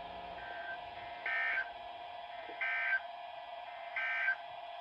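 Three short bursts of EAS SAME digital data tones, the end-of-message code, each lasting a fraction of a second with about a second's gap between them. They mark the end of a severe thunderstorm warning broadcast and play over a faint steady hum.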